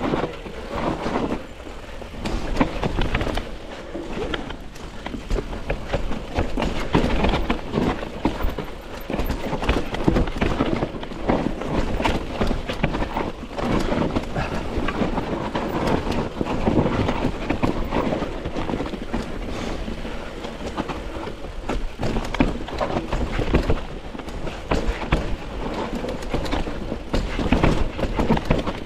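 Mountain bike riding down a rough, muddy singletrack: tyres on dirt and a constant rattle of chain and frame over the bumps.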